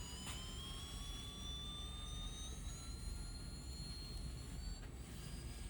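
Small speaker driven by an IR distance sensor circuit, playing a continuous buzzy tone whose pitch rises slowly as the measured distance to the obstacle grows.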